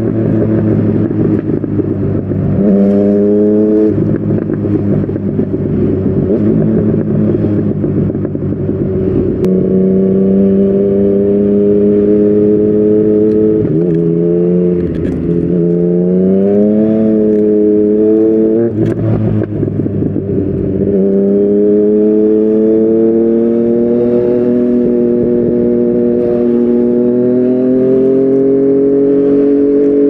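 Yamaha MT-09's inline-three engine through a Yoshimura R55 slip-on exhaust, running under way. Revs stay mostly steady, with a sharp rise about three seconds in, a dip and climb between about fourteen and eighteen seconds, and a drop just before twenty seconds.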